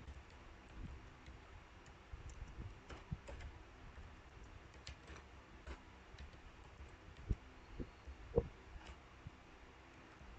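Faint typing on a computer keyboard: irregular keystroke clicks, with a few louder strokes about two-thirds of the way in.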